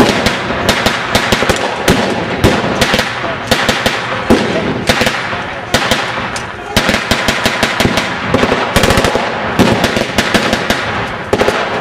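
Blank gunfire from rifles and machine guns in a staged firefight: dense, irregular shots, some in quick runs, with no let-up.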